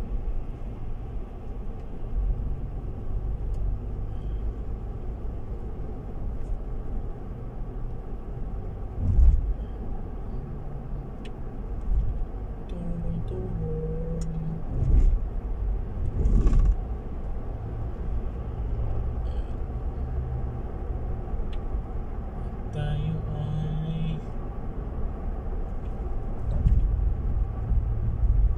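Car driving, heard from inside the cabin: a steady low rumble of engine and road noise, with a few short louder thumps about a third and halfway through.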